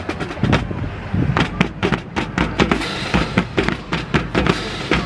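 Marching drum corps playing a rhythmic cadence on snare and bass drums, with quick, sharp strikes.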